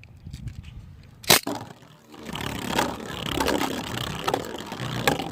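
Plastic handling clicks as beyblades and launchers are readied: a few faint ticks, one sharp loud click, then a steady rattling with many small clicks.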